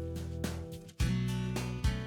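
Background music with plucked guitar and a steady beat; it drops out briefly just before the halfway point and comes back in.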